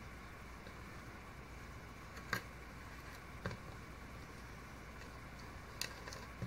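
Chip-carving knife cutting into a small block of wood: a few short, sharp clicks as the blade slices through the grain and chips break free, the loudest a little over two seconds in, over a steady faint hiss.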